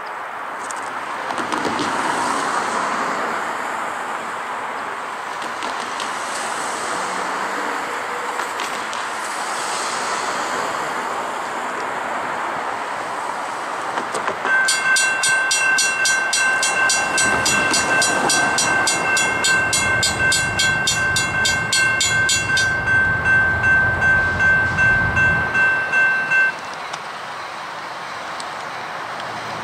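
A train passing, with a rushing noise of wheels on rail. About halfway through, a bell starts ringing steadily in quick pulses over the train's rumble, and it cuts off suddenly a few seconds before the end.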